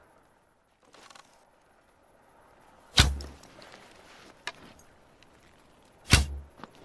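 Two bow-and-arrow shots about three seconds apart, each a sharp thwack with a low thud, with fainter clicks and handling noises between them.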